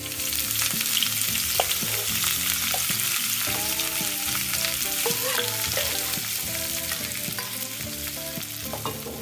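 Hot tadka (oil with fried garlic, ginger, dried red chillies, curry leaves and green chillies) poured onto cooked daal, sizzling loudly. It breaks out all at once and slowly dies down.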